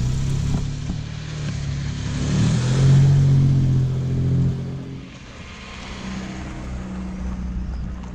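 Jaguar XK150 roadster's straight-six engine accelerating as the car pulls away, rising in pitch and loudest about three seconds in, then dropping away as the car drives off.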